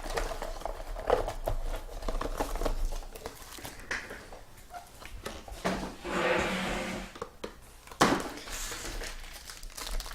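Trading-card pack wrappers crinkling and cards being handled, a run of small rustles and clicks, with a louder stretch of crinkling about six seconds in.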